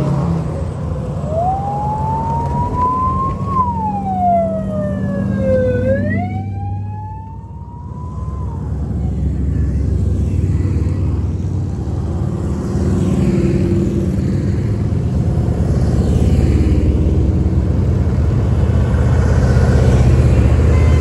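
A siren wailing, sliding slowly up and down in pitch for the first nine seconds or so, over the steady engine rumble of a column of passing vehicles. Motorcycles and then tractor-trailers go by, and the engine noise grows louder toward the end.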